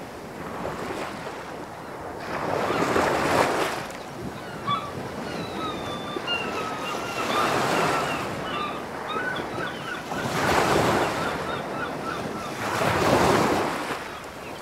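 Sea surf: waves breaking and washing back, swelling up about every three seconds, with short bird chirps over the water in the middle stretch.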